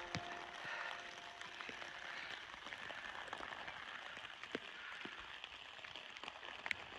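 Steady rain falling, a soft even hiss with single drops ticking now and then.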